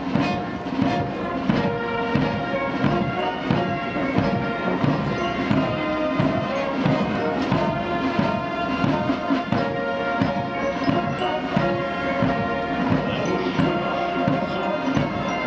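Russian military brass band playing a march: trumpets and tubas over a bass drum keeping a steady beat.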